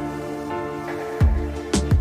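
Background music: sustained synth-like tones, with a pounding electronic beat that drops out, then comes back about a second in.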